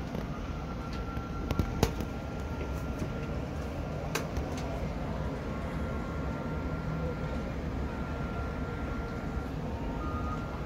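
City street ambience heard from high above: a steady low hum of traffic, with a faint steady whine and a few sharp clicks, the loudest a little under two seconds in and another around four seconds.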